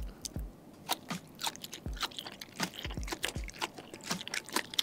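Close-miked chewing and crunching of bitter melon coated in chili sambal. Sharp, irregular crunchy clicks come two or three times a second, with a fresh bite near the end.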